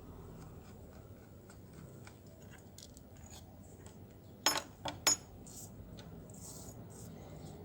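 Small metal parts of a Moser hair clipper being handled: light clicks and taps, with three sharp metallic clinks in quick succession a little past the middle.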